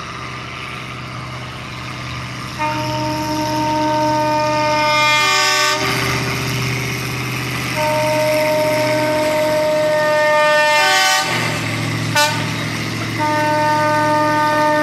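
Horn of a 1928 Plymouth gas locomotive sounding three long blasts of about three seconds each, each ending with a brief rise in pitch, over the steady low running of its gasoline engine. One sharp click comes between the second and third blasts.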